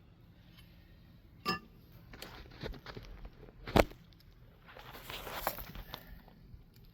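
A few scattered metal clinks and knocks, the sharpest about four seconds in, with a scraping shuffle a second later, from tools and parts being handled on the excavator's track adjuster.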